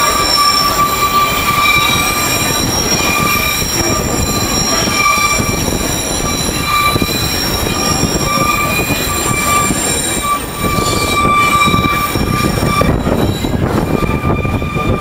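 The scenic train's steel wheels squeal against the rails on a curve. It is a steady, high-pitched ringing squeal with several overtones over the low rumble of the running cars. The squeal drops out briefly about ten and a half seconds in and is weaker near the end.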